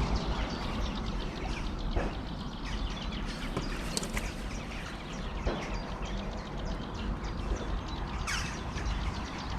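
Outdoor ambience of small birds chirping over a steady low rumble, with a few brief clicks or knocks.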